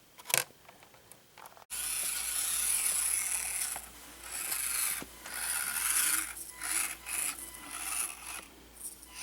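Axial SCX24 micro RC crawler's small electric motor and gear drivetrain whirring in several bursts as it is throttled on and off while driving. A single click comes about half a second in, and the whirring starts suddenly near two seconds in.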